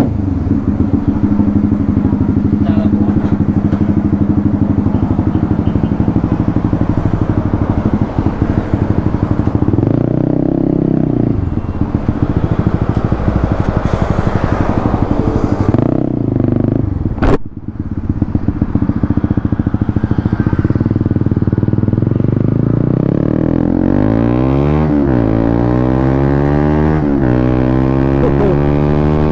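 2018 Honda CB150R's single-cylinder engine running as the bike rides off, then accelerating, its pitch rising again and again through the gears in the last few seconds; the engine has just been tuned up with an ECU remap and a new iridium spark plug. One sharp click a little past halfway.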